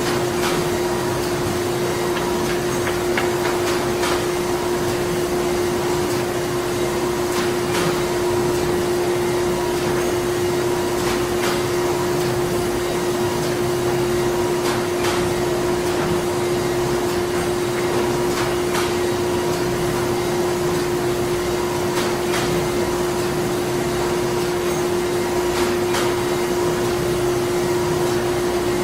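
Printing-plant machinery running steadily: a constant drone with one strong humming tone over a hiss, and faint knocks or clicks now and then.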